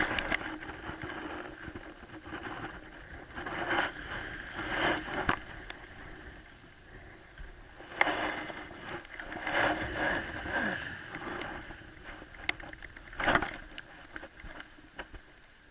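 Sea water washing and splashing in irregular surges, with a few sharp clicks.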